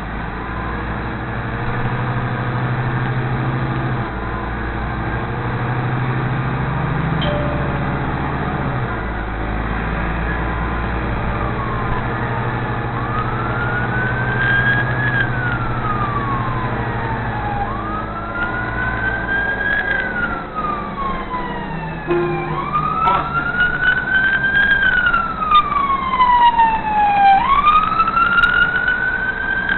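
A siren wailing, rising and falling about every five seconds, starting faint partway in and growing louder, with a second siren overlapping near the end. Underneath, the low steady running of a Nova Bus LFS city bus, heard from inside the bus.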